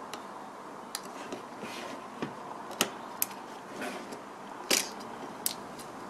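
Sharp little plastic clicks and snaps as a phone's motherboard is prised by fingers out of its plastic midframe, with brief rubbing between them. The two loudest snaps come about halfway through and near three-quarters of the way.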